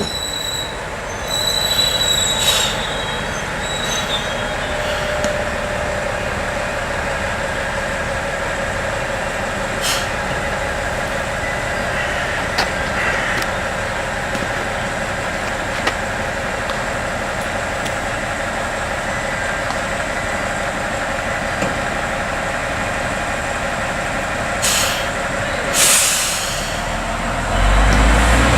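Diesel railcar of the Tenryu-Hamanako Railroad standing in a station. A thin high squeal of wheels or brakes comes in the first few seconds, then the engine runs steadily. There are two short hisses near the end, and a louder low rumble starts just before the end.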